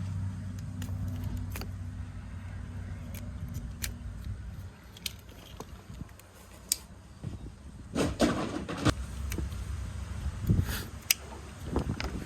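Light metallic clinks and rattles from hand tools and mower parts being handled, with louder clattering handling noise twice in the second half. A low steady hum runs under the first few seconds.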